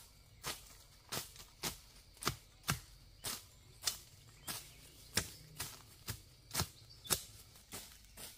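Footsteps at a steady walking pace, about two crisp steps a second.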